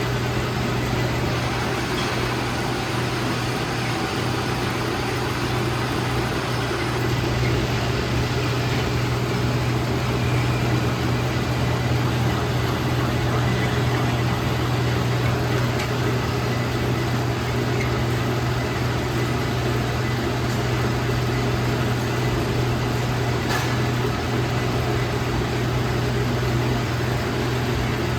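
Metal lathe running steadily, a constant low hum with a continuous noisy layer over it and no change in speed.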